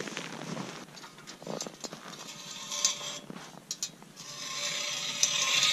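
Footsteps in snow, then about four seconds in a manual Mora hand ice auger starts biting into lake ice, giving a steady scraping rasp that grows louder.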